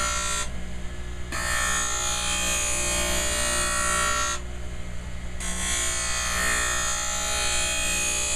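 Skate sharpening machine's grinding wheel running with a steady motor hum while an Easton NanoGlide runner is passed along it, giving a high grinding hiss. The hiss drops away twice, about half a second in and again about four and a half seconds in, for roughly a second each time.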